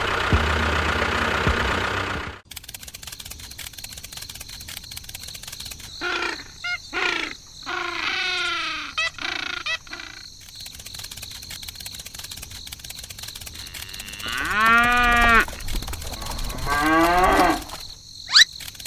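A steady engine-like running noise that cuts off abruptly about two seconds in, followed by cattle mooing: a few shorter calls, then longer drawn-out moos, the loudest a little past the middle.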